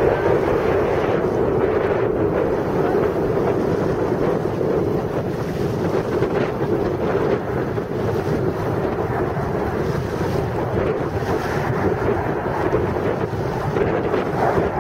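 Steady jet engine noise from a nine-ship formation of Aermacchi MB-339 jets flying past.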